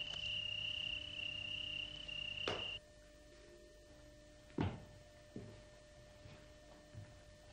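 A steady high trill, like a cricket's, that cuts off suddenly just under three seconds in. Then come a few sharp knocks, the loudest about a second and a half later.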